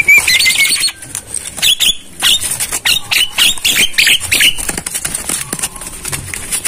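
Javan myna (jalak kebo) calling from its cage. A short trill is followed by a quick run of short, harsh notes, about four a second, mixed with sharp clicks. The uploader presents these as the calls of a bird in mating mood.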